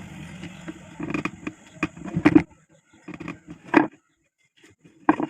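A low steady hum for about the first second, then a run of irregular knocks and clatters with short gaps, as of hard objects being handled and set down.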